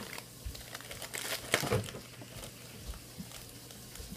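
Crinkling and crackling of snack packaging being handled and opened, loudest in a short run of sharp crackles about a second and a half in, then a few faint rustles.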